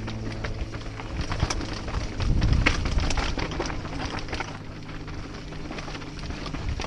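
Mountain bike descending a rocky dirt trail: many sharp clicks and knocks of the bike rattling over rocks, over tyre noise on the dirt. Wind rumbles on the microphone, strongest about two to three seconds in.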